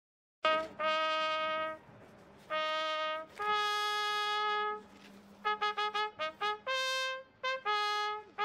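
A solo trumpet playing a slow melody of long held notes, with a quick run of short notes in the middle. It cuts in abruptly about half a second in.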